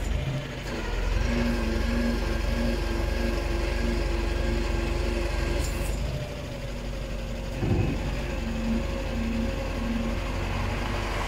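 ISUZU light truck's diesel engine idling steadily inside a steel shipping container, with a short knock about eight seconds in.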